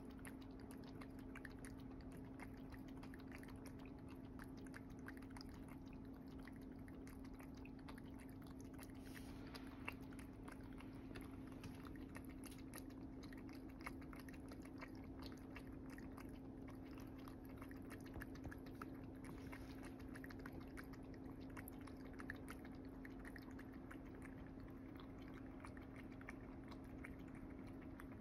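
Cat lapping water from a small stainless steel cup: a fast, continuous run of faint wet clicks and slurps, over a steady low hum.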